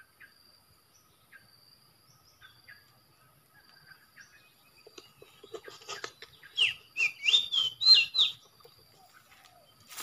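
Oriental magpie-robin (kacer) song: a phrase of clear whistled notes sliding up and down, starting about five seconds in and stopping about three seconds later, with faint clicks and rustles around it.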